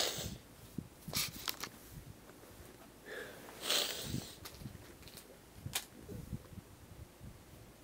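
A woman crying, sniffing several times through her nose in short hissing breaths, the biggest about four seconds in. A sharp click near the end comes as the camera is handled.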